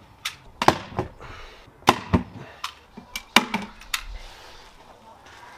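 Staple gun firing staples through carpet into a wooden cat-tree platform: a string of about eight sharp snaps at uneven spacing.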